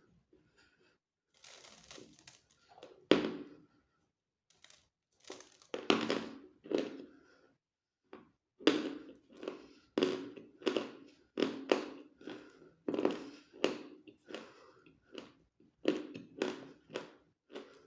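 Close-miked eating of a hard, crunchy food. There is a crinkly rustle early on and a single sharp snap about three seconds in as a piece is bitten off. After that come steady crunching chews, about two a second.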